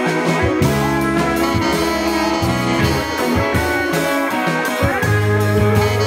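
Live rock band playing: electric guitars over bass and a drum kit.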